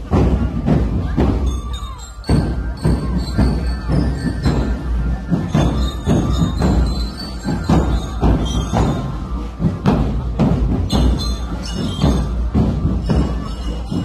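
Military marching drum band playing on the move: drums beating a steady march rhythm, with high, bell-like melody notes held over the beat.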